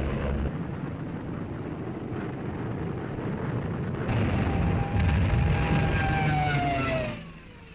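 Old newsreel soundtrack of a WWII aircraft engine drone. About four seconds in, a whining engine note rises slightly and then falls in pitch, as a plane dives past. It fades out just before the end.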